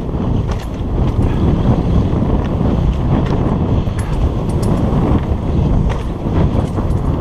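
Wind buffeting the camera microphone as a mountain bike rides fast down a dirt woodland trail, making a loud, steady low rumble, with scattered sharp clicks and rattles over it.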